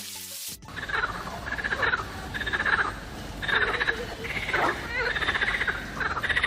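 Frogs croaking in a chorus of rapid, pulsing calls that overlap one another, starting about half a second in.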